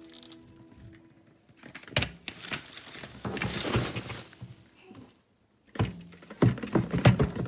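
Clicks, knocks and rustling from the plastic body and parts of a Dyson Ball Animal 2 upright vacuum being handled and moved, with a brief pause and a run of knocks near the end.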